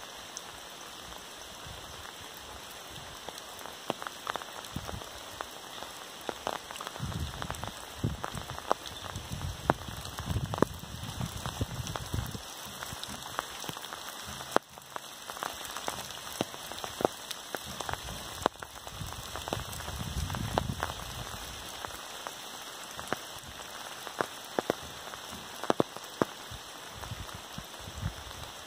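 Monsoon rain falling steadily: an even hiss with many sharp, irregular splats of single drops close by, and a low rumble here and there.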